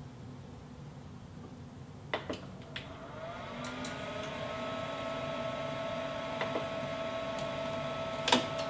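A few clicks from the controls of a Kenwood Cooking Chef Gourmet kitchen machine. About three seconds in, the machine starts up with a briefly rising whine and then runs with a steady hum as it heats the bowl toward 120 °C on stir interval speed 3.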